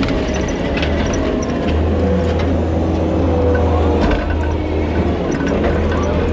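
Kubota KX080 excavator's diesel engine running steadily, with a faint whine that shifts up and down in pitch.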